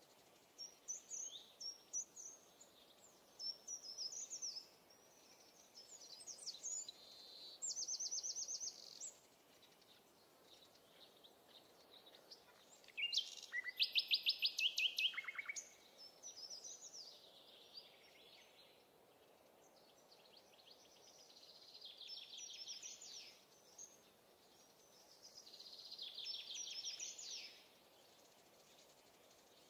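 Songbirds singing: a run of short song phrases with quick trills, the loudest a fast trill about halfway through, over a faint steady background hiss.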